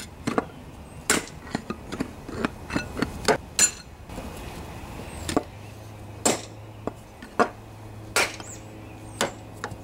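A hammer strikes a long steel rod set through the hub of a riding lawnmower's front wheel, driving out the worn wheel bushing. The sharp metallic blows come in an uneven string, about fifteen of them.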